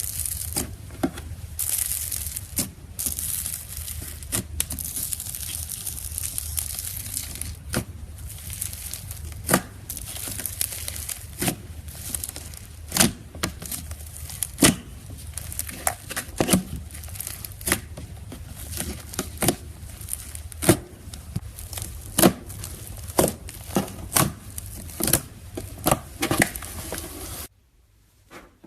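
Slime being worked by hand: continuous crinkling and crackling with many sharp pops and clicks, which grow louder and more spaced out after about halfway. It stops abruptly about a second before the end.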